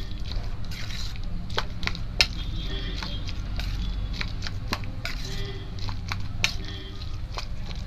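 Metal slotted spoon scraping and clinking against a stainless steel bowl while mixing and mashing boiled chickpeas and potato, with irregular sharp clicks, the sharpest about two seconds in. A low steady hum runs underneath.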